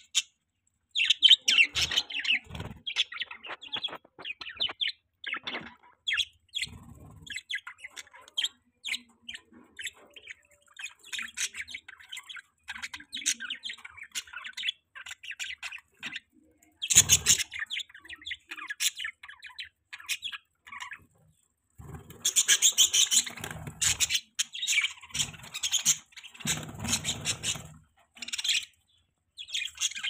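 A group of budgerigars chattering and chirping: a near-constant stream of short, high chirps, with louder flurries about 17 seconds in and again from about 22 to 24 seconds.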